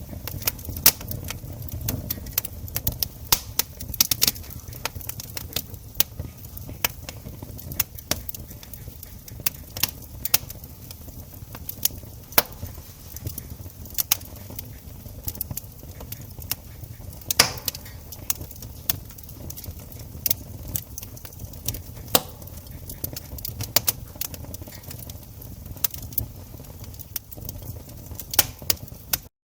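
Burning wood logs crackling, with irregular sharp pops and snaps, several a second, over a steady low rumble of the fire.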